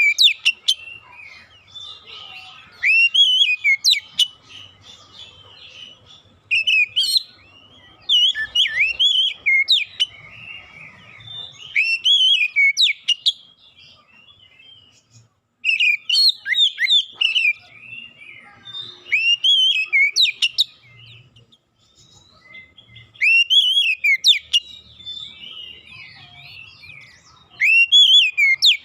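Oriental magpie-robin (kacer) singing: loud bouts of rich whistled phrases that sweep up and down, mixed with sharp high notes. Each bout lasts a second or two, with about eight of them separated by short pauses.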